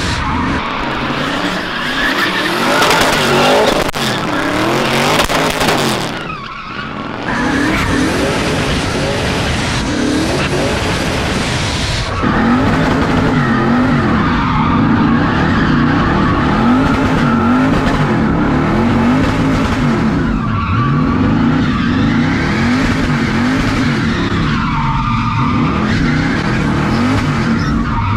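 Twin-turbo LS V8 of a Fox-body Mustang drift car, drifting: the engine revs up and down over and over, about once a second in the later part, as the throttle is worked, while the tyres squeal and skid.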